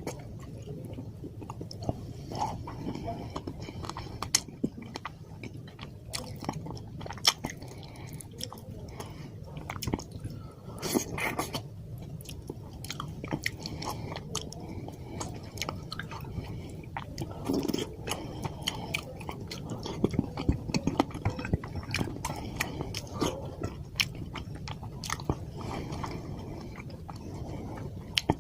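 Close-up eating: wet chewing and lip smacks as a mouthful of fish curry and white rice is eaten, with frequent short clicks and smacks throughout.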